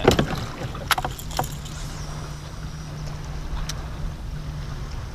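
Fishing kayak under way across open lake water: water rushing along the hull under a steady low hum, with a few sharp knocks in the first second and a half.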